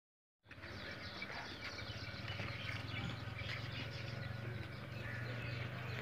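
Goat-yard background: scattered faint chirps of small birds over a steady low hum, with no clear goat bleat.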